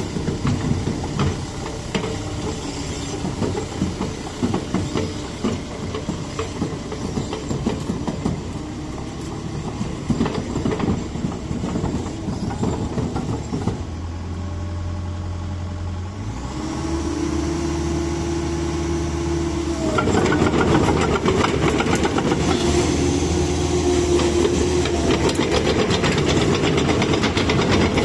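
CAT 306 mini excavator running: irregular mechanical clatter and knocking for the first half, then a steady low engine note that shifts pitch past the middle and gets louder about two-thirds of the way through.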